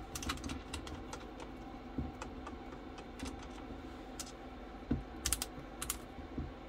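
Clicking of the rotary range-switch knobs on an AVO Model 7 multimeter being turned through their positions: a quick run of clicks at first, then single clicks, and a few louder clicks near the end.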